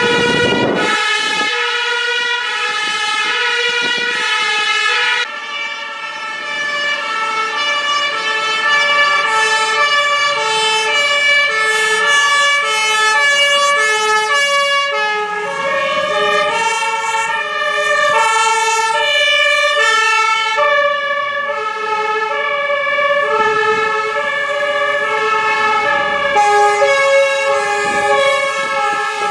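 Fire engine two-tone sirens alternating between a low and a high note. There is an abrupt cut about five seconds in, after which two-tone patterns overlap out of step, as from more than one siren.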